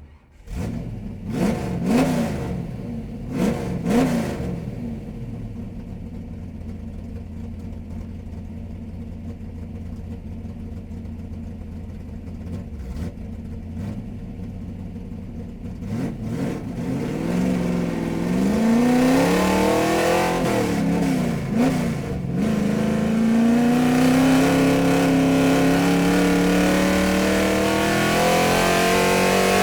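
A car engine starts and is blipped a few times, then idles steadily. About two-thirds of the way through it is revved again and then held at a louder, higher engine note that climbs slowly.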